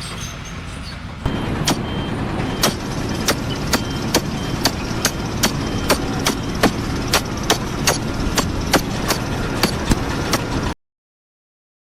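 Machinery running with a steady low rumble and sharp, evenly spaced knocks about two to three a second. It cuts off abruptly near the end.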